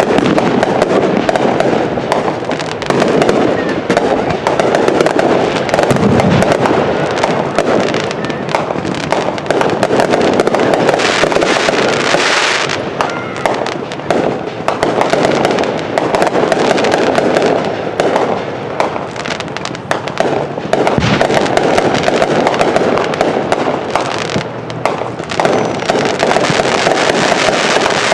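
Fireworks barrage: a continuous dense crackling and popping without a break, with a couple of deeper booms and a stretch of brighter hiss partway through.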